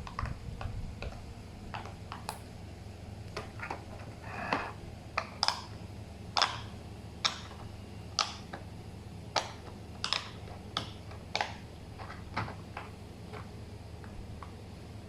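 Bubbles of a pop-it fidget toy being pressed one after another in a quick, uneven run of soft pops and clicks, a few louder than the rest.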